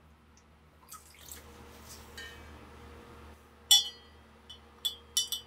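Water trickling faintly into a tall glass cylinder, then steel STEN gun parts clinking against the glass: one sharp, ringing clink a little past halfway, then several lighter clinks near the end.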